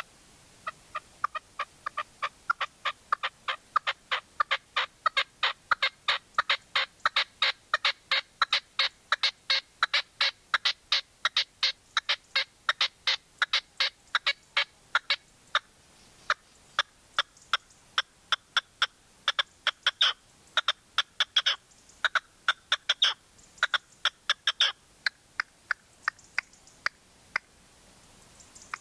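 Red-legged partridge calling: a long run of sharp, rapid call notes, about three a second. The notes thin out and turn irregular in the second half.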